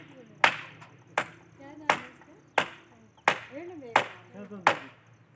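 Steady, rhythmic blows of a hand tool, eight sharp strikes about one every 0.7 seconds.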